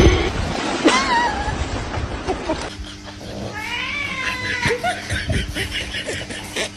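Waves splash on a rocky shore, with one short wavering call about a second in. After a cut, a house cat yowls: a drawn-out, rising-then-falling caterwaul followed by shorter cries, given as a dog climbs on top of it.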